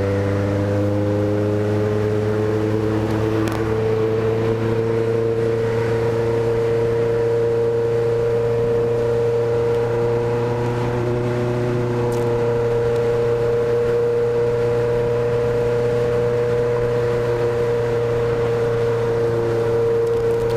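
Honda CB motorcycle engine and exhaust running while being ridden, its note rising a little over the first few seconds and then holding steady.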